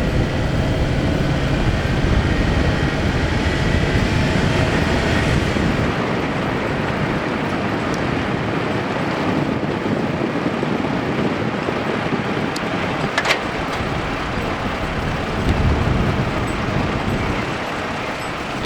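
Steady road, tyre and engine noise with wind rush from a van driving along at speed, picked up by a microphone held out of the window under a sheepskin wind muff that keeps the wind buffeting down. A single sharp click about two-thirds of the way through.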